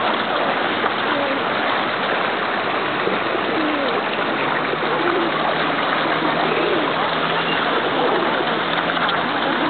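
A crowded school of catfish thrashing and splashing at the water's surface as they fight over bread, a continuous churning splash with no pauses. A low steady hum joins about four and a half seconds in.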